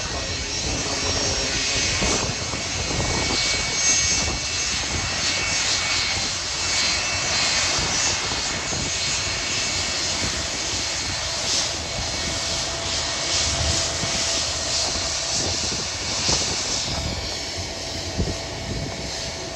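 Jet airliner engines running at the airport, with a steady high whine over a dense hiss of rain and wind. A lower steady engine tone sets in from about halfway.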